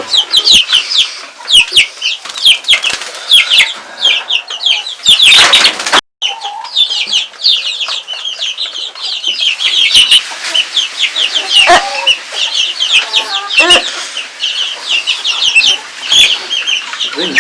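A flock of chickens clucking and calling, with a constant chatter of short, high chirping calls. A loud rustling burst comes about five seconds in, and there are a few lower clucks later on.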